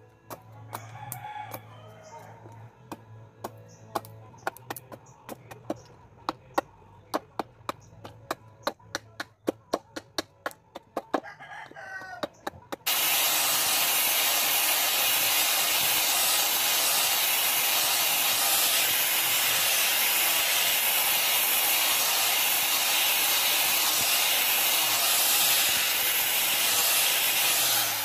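A knife carving a small piece of wood, sharp scraping strokes about three or four a second, with a rooster crowing in the background. About halfway through, a handheld electric angle grinder starts and runs steadily and loudly as it grinds the wood piece, stopping near the end.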